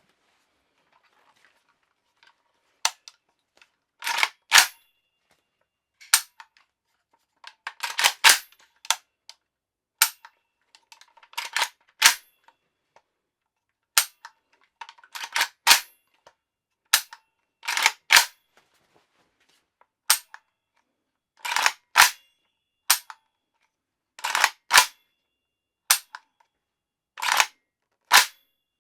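Sharp metallic clacks and clicks from handling a PSA Soviet Arms AKS-74U-style Krink pistol, an unfired .300 Blackout firearm. They come in quick pairs and clusters every second or two, each with a short metallic ring.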